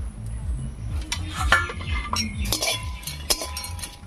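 Metal spatula scraping and clinking against a dry steel kadai while dried red chillies are dry-roasted in it, with a few sharp clinks. One clink a bit after three seconds leaves the pan ringing briefly.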